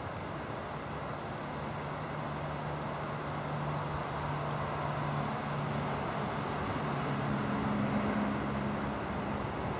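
Steady low rumble of background noise with a distant engine-like drone beneath it. The drone steps up in pitch about seven seconds in, then eases back.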